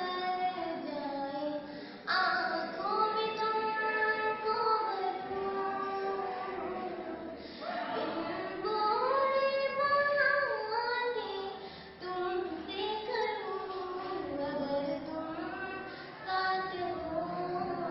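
A schoolgirl singing solo and unaccompanied, in long held and gliding notes, pausing briefly for breath between phrases about every four to five seconds.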